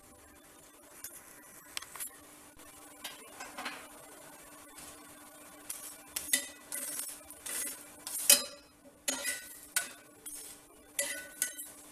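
A flat spatula clinks and scrapes against a black iron tawa as it presses and turns a ragi chapati. The sounds are irregular and grow louder and busier in the second half, with the sharpest knock a little past the middle, all over a faint steady hum.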